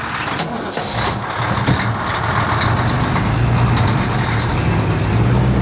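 Truck engine running with road noise as the truck drives; a steady low engine hum comes in about a second in.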